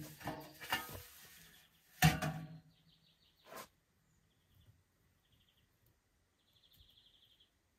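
A few sharp knocks and scrapes of work with stone, the loudest about two seconds in, followed by faint bird chirps in short rapid trills.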